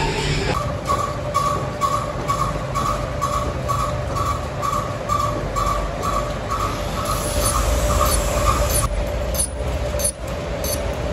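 Workshop machinery running with a low rumble and a steady hum, beating in a regular rhythm of about two to three strokes a second that stops about nine seconds in.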